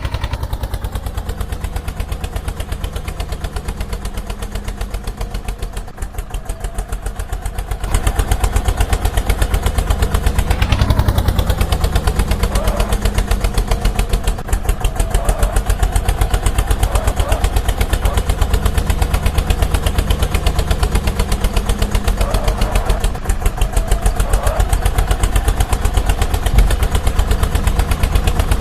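Vehicle engine running with a steady, rapid beat, growing louder about eight seconds in and staying there.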